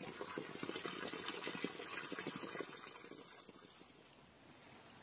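Water splashing steadily from a bamboo-pipe spout at a spring, fading away about three to four seconds in.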